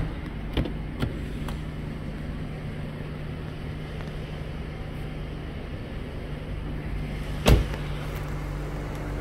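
Mercedes-Benz E250 CGI sedan's front door being opened with a couple of light latch clicks near the start, then shut with one solid thud about seven and a half seconds in, over a steady low hum.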